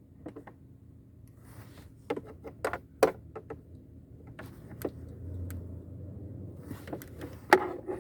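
A scattering of light clicks and knocks as the car's glovebox and interior trim are handled, over a faint low hum.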